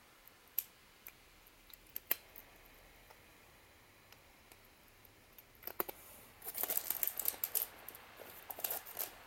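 A cat crunching dry kibble: a few separate sharp crunches at first, then a quick run of crackly crunching clicks about six and a half seconds in and again near the end.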